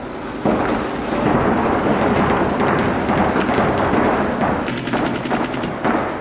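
Paintball markers firing rapidly in continuous overlapping volleys. Near the end, a fast, even string of shots lasts about a second.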